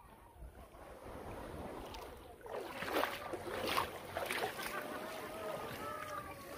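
Sea water sloshing and splashing close to the microphone. It starts about two and a half seconds in after a quiet opening, with a faint wavering hum underneath.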